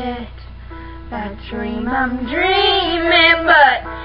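Young female voices singing a song, with held notes that slide in pitch and a quieter gap about a second in, over a steady low hum.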